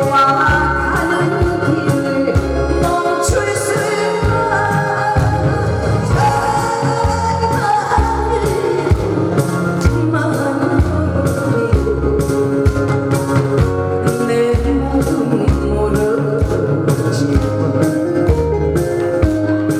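A woman singing a song into a microphone over loud amplified accompaniment with a steady drum and bass beat.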